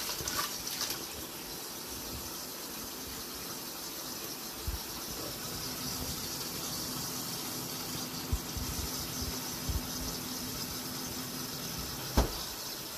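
Kitchen tap running in a steady stream into a stainless steel sink basin that is filling with water. A few soft knocks come through in the middle, and a sharper click comes near the end.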